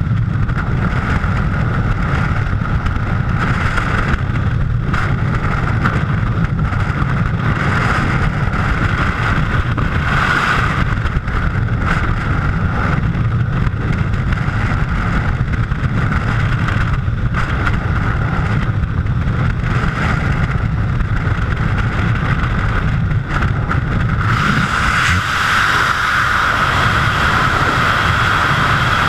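Freefall wind rushing over a skydiver's camera microphone: loud, steady, with a deep rumble and a hiss. About 24 seconds in the rumble thins and the hiss grows louder.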